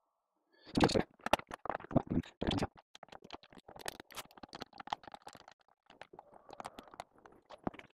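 A boiler cover panel and its screws being handled and fitted with a screwdriver. A quick run of loud knocks and clatters comes about a second in, then lighter clicks and rattles.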